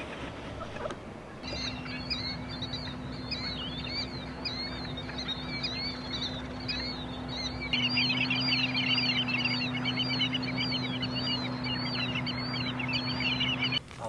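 A flock of birds calling, many rapid high calls overlapping in a continuous chatter over a steady low hum. About eight seconds in, the calling becomes denser and louder.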